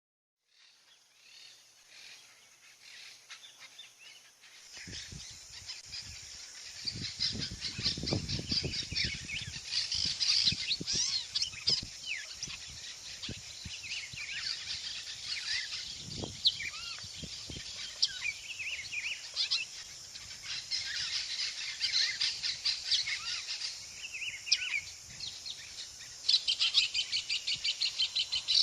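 Chorus of many birds chirping and calling, fading in from silence over the first few seconds. Near the end a rapid, repeated call becomes the loudest sound.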